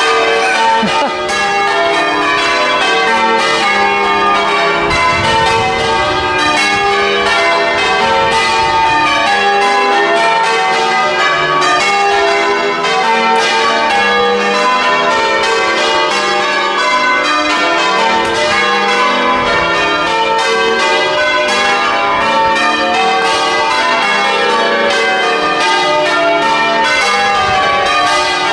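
A ring of church tower bells being rung in change ringing: bells struck one after another in a steady, continuous rhythm, their notes overlapping and ringing on.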